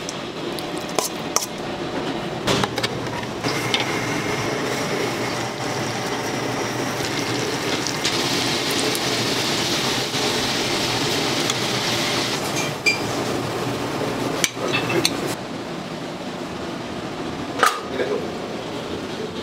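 Kitchen work sounds: utensils clicking and scraping against a stainless steel bowl, and, through the middle stretch, a steady sizzle of butter in a hot pan as buns toast. Sharp clinks come a few times near the start and again toward the end.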